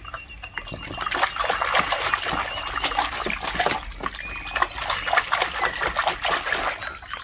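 Hands washing muddy plastic toys in water: irregular splashing, squelching and clattering.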